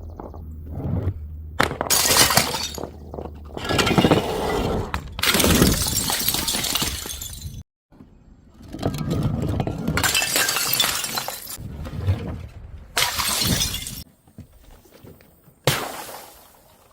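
Glass bottles shattering, one after another in a series of loud crashes with sudden starts and a crunch of glass after each.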